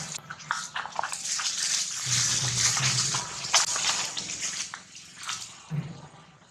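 Dry leaves rustling and crackling as macaques scuffle on the ground, with many sharp crackles over a dense hiss that fades near the end.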